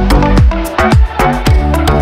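Electronic dance music with a steady beat: a deep kick drum about twice a second, crisp hi-hat ticks between the kicks and sustained synth notes.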